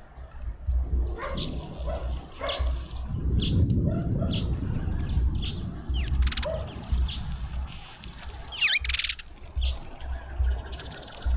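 Small seed-eating birds chirping and twittering at a garden feeder, in many short high calls and a few quick trills. A dog barks several times among them.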